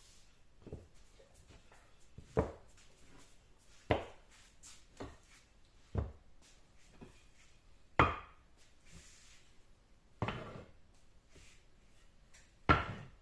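A series of seven separate hard knocks, one every one and a half to two and a half seconds, the loudest about eight seconds in and near the end.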